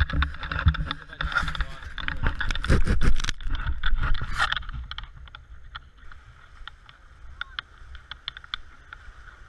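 Wind rumble and handling knocks on a handheld selfie-stick camera's microphone, loud for the first few seconds, then dropping to a quieter steady hiss with scattered light clicks as the surf comes near.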